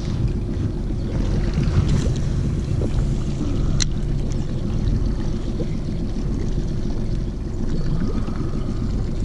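Steady low rumble of wind buffeting an action camera's microphone on an open boat, with a single sharp click a little under four seconds in.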